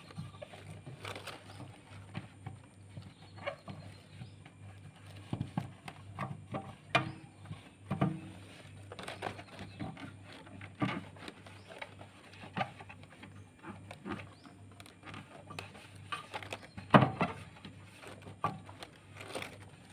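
Irregular light knocks and clicks, the loudest about seventeen seconds in, over a steady low hum.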